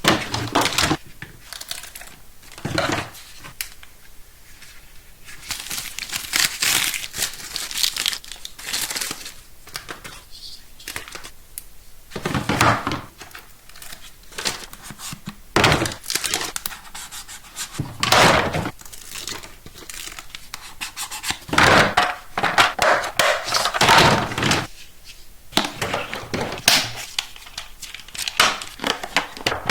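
Toy packaging being handled and opened: irregular crinkling and tearing of plastic and cardboard, with scattered clicks and knocks.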